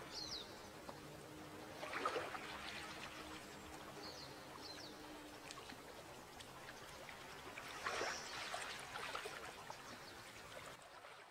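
Faint sea water lapping and trickling at a rocky shore, with a louder wash of a wave about two seconds in and again near eight seconds, and a few short high chirps. It fades out at the end.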